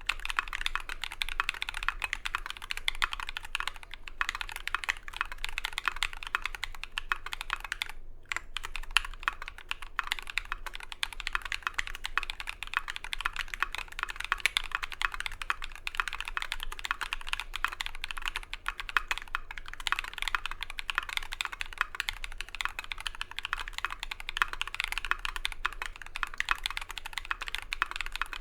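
Fast, continuous typing on a mechanical keyboard with lubed Holy Mint Yok tactile switches on a brass plate and MT3 keycaps, the keystrokes running together in a dense clatter. It pauses briefly twice, about four and eight seconds in.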